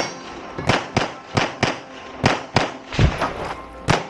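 Rapid pistol fire from a 9mm Colt handgun during an IPSC stage. About ten sharp shots come at an uneven pace, several in quick pairs a third of a second or less apart, with short pauses between groups.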